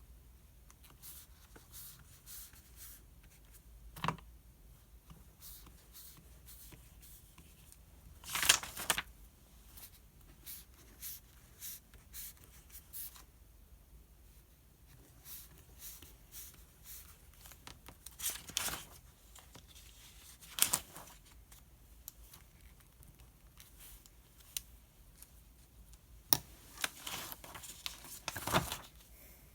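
Writing on paper in short scratching strokes, with several louder rustles of paper as pages are turned, the longest about eight seconds in and a cluster near the end.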